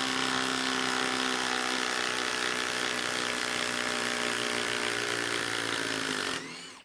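Ridgid Octane brushless impact driver running steadily as it backs a lag screw out of wood, then winding down and stopping near the end.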